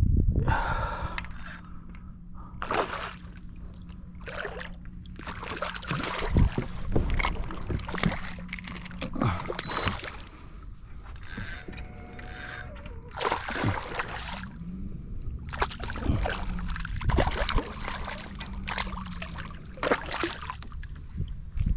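Water splashing and irregular knocks and rustles of handling aboard a fishing kayak, with a steady low hum through the first half.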